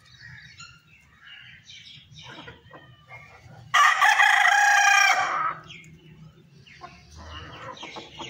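Aseel rooster crowing once, a loud call of just under two seconds starting a little over three and a half seconds in. Hens cluck softly before and after it.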